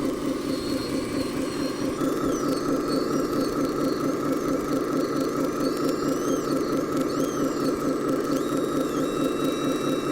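Simulated diesel engine sound from an RC model truck or tractor's onboard sound module, running steadily with an even throb. From about two seconds in, thin high whines rise and fall, typical of the models' small electric drive motors and gearing as they move.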